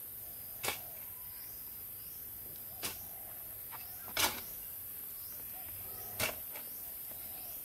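Four sharp strikes of a hand tool at an uneven pace, one every one and a half to two seconds, some with a short ringing tail, over a steady faint high hiss.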